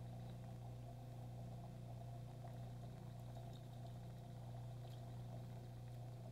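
Steady low electrical hum of aquarium equipment running, with a few faint ticks about three to five seconds in.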